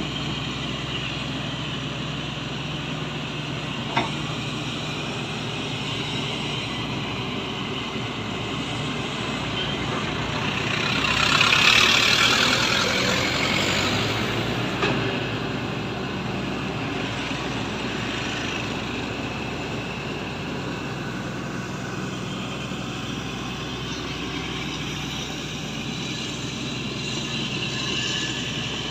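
Shantui excavator's diesel engine running steadily, with a loud hissing swell lasting a few seconds about halfway through and a single sharp click a few seconds in.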